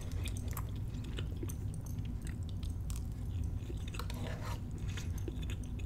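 Close-miked chewing of crab cake and pasta: soft wet mouth clicks and smacks, scattered irregularly, over a low steady room hum.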